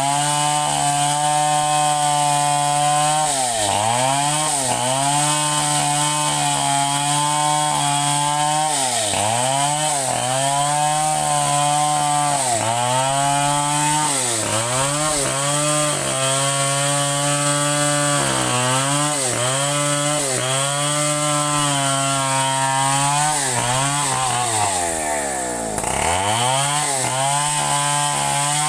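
Two-stroke chainsaw running at high revs while cutting wood, its pitch dipping sharply and recovering every second or two as the chain loads in the cut. Near the end the revs drop far down, then pick up again.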